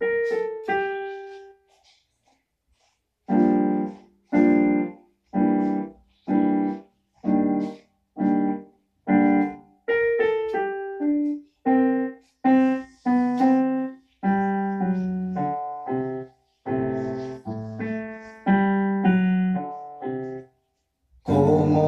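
Piano played alone, with two notes at the start, a short pause, then a steady run of short struck chords, about one a second, each released cleanly before the next.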